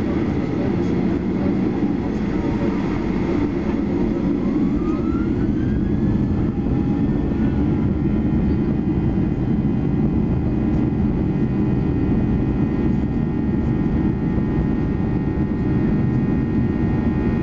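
Boeing 737-800's CFM56 jet engines at takeoff power, heard from inside the cabin during the takeoff roll: a loud, steady roar with a low rumble. A few seconds in, a whine rises in pitch and then holds as a steady high whine.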